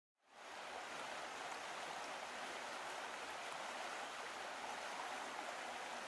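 Steady rush of running water, as from a stream, fading in quickly at the start.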